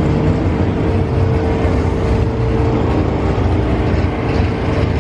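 Drag race car engines running with a loud, steady rumble and no revving.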